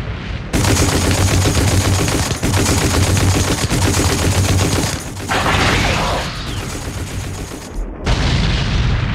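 Battle sound effects: rapid, dense gunfire, broken about five seconds in by a rushing whoosh, then more firing, and a sudden change to a low rumble near the end.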